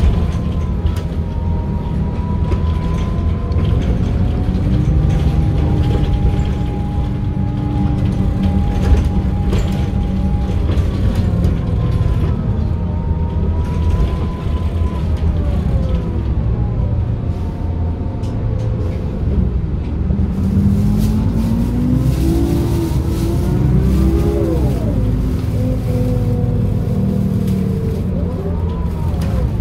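Inside a MAN NM 243 midibus: its D 0836 six-cylinder diesel and ZF Ecomat automatic gearbox running under way. The engine and gearbox whine rise and fall in pitch with speed. About three-quarters of the way through, the pitch climbs steadily and then drops sharply at a gear change.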